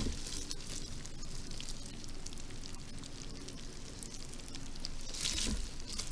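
Faint wet crackling and ticking from a moist worm bin's bedding, the sound the uploader hears as red wiggler worms crawling through it. A louder rustle comes about five seconds in.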